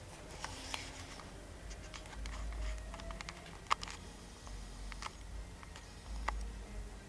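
Irregular light clicks and taps, one sharper than the rest a little past the middle, over a low rumble.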